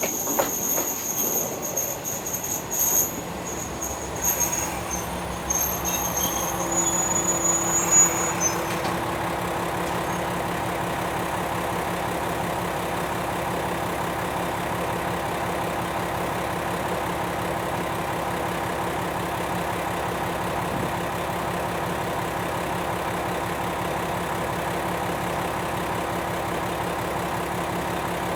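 Diesel railcar squealing from its wheels and brakes as it comes to a stop, the high squeal dying away about nine seconds in. Its diesel engine then idles with a steady hum.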